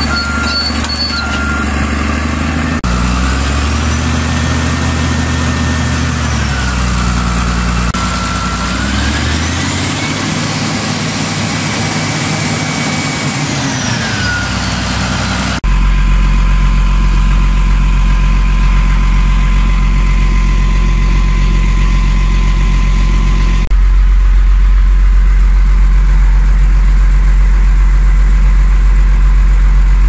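Caterpillar D6R bulldozer's turbocharged 3306 six-cylinder diesel running: its pitch rises, holds and falls back twice, then it idles steadily with a low hum, louder from about 16 s on. A backup alarm beeps briefly at the very start.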